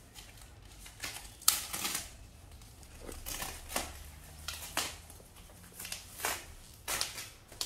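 Plastic wrapping and bubble wrap on a new bicycle crinkling and rustling in short, irregular bursts as it is pulled at to unwrap the bike.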